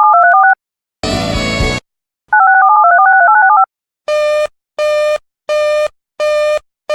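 Electronic alert tones: a quick pattern of clean beeps stepping between two pitches, a short buzzy burst, the stepping pattern again, then a row of short, evenly spaced single-pitch beeps, about one and a half a second.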